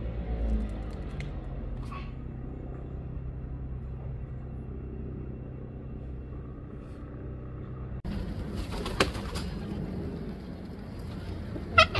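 Pigeons cooing over a steady low hum. About two-thirds of the way through the sound changes abruptly to a noisier background with a few clicks, and short sweeping bird chirps come near the end.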